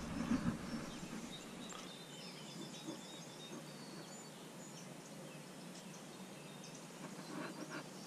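Faint outdoor ambience: a steady soft hiss with scattered brief, high bird chirps.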